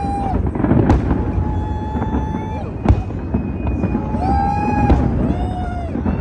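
Fireworks going off: a dense rumble and crackle with sharp bangs about every two seconds, over which several whistle-like tones are each held for about a second.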